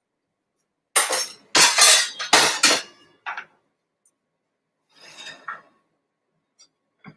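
Dishes clattering on a kitchen counter as plates and utensils are handled. There is a run of loud knocks and scrapes lasting about two seconds, then a single clink, and a softer scraping sound a couple of seconds later.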